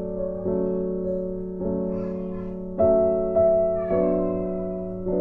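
Background music of slow, sustained keyboard chords, with a new chord struck every second or so.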